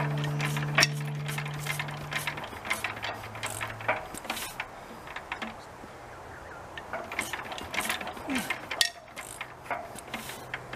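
Irregular metallic clicks and clanks from hands working on a 2 HP Rosebery stationary engine, with music fading out over the first few seconds.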